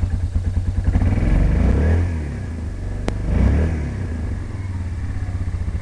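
Yamaha Bruin 350 ATV's single-cylinder four-stroke engine running on choke while it warms up, revved up briefly twice. There is a sharp click about three seconds in.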